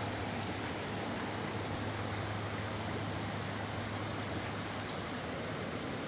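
Shallow rocky river rushing and rippling over stones: a steady water noise with a low hum underneath.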